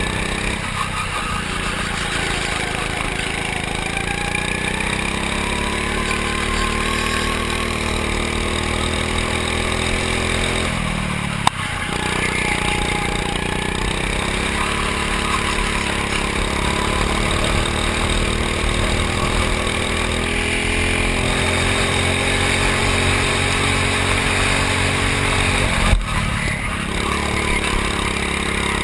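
Go-kart engine running at speed: its pitch climbs as it accelerates and drops when the driver lifts off, about a second in, near 11 seconds and near 26 seconds. A sharp knock sounds at each of the last two drops.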